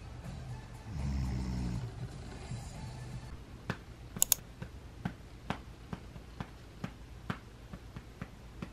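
Background music, then from about three seconds in, a hand patting a baby's back in a steady drum-like rhythm, about two pats a second.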